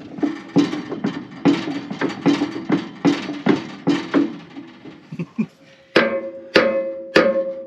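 Hammer blows on a steel pin being driven into a bulldozer's bushing. A quick, even run of strikes pauses near the middle, then slower, heavier blows follow, each with a clear metallic ring.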